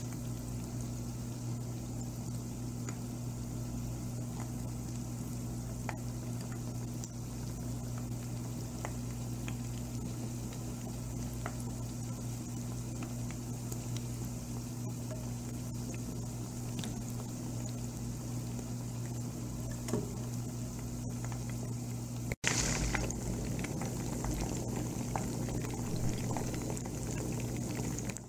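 Batter-coated chicken pieces deep-frying in hot oil on their first fry: a steady bubbling sizzle with scattered small crackles over a low steady hum. It breaks off for an instant about three-quarters of the way through, then goes on slightly louder.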